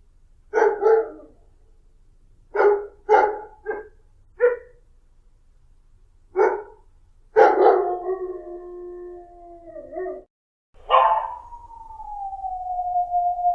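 Dog barking, about seven short barks spaced irregularly, then two long howls; the second howl glides down and holds a steady pitch.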